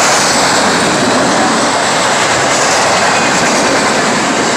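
Freight train cars, autoracks and boxcars, rolling past on the rails: a loud, steady rush of wheel and rail noise.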